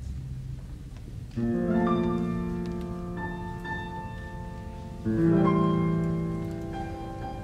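Grand piano playing two full chords, the first about a second and a half in and the second about five seconds in. Each rings out and slowly fades, over quiet, sustained low orchestral notes.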